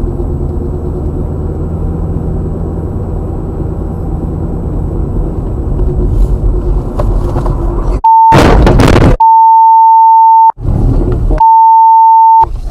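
Steady engine and tyre rumble inside a moving car for about eight seconds, then a loud censor bleep: a single high tone sounding three times, broken by two loud rough bursts of noise.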